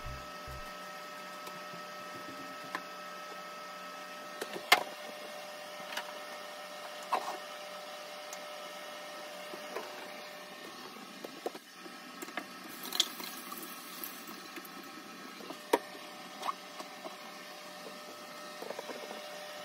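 Steady hum of a small room, with several faint clicks and taps scattered through it.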